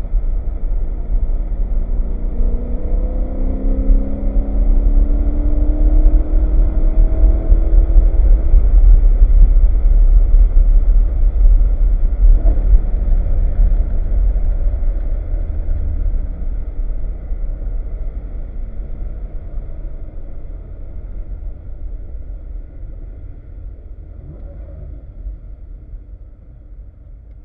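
BMW E92 M3's V8 engine pulling and rising in pitch over a heavy low rumble, then getting steadily quieter through the second half as the car eases off.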